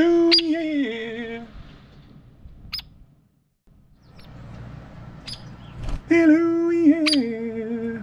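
A man's voice sings the two-note 'hello, yeeah' jingle twice, each time a held note that steps down to a lower one, the call the hairy woodpecker has learned to answer by flying to the hand. Between the phrases come several short, sharp, high calls, typical of a hairy woodpecker's 'peek', and a brief dead silence about three seconds in.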